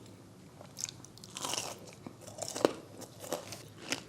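A person biting and chewing a crispy fried chicken wing: a run of crunches, the loudest about two and a half seconds in.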